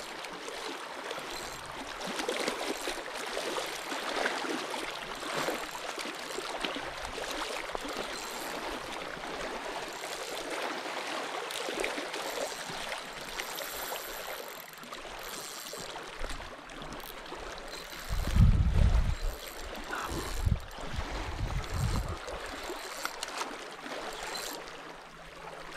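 Water lapping and splashing in a steady wash, with a few dull low thumps about two-thirds of the way through.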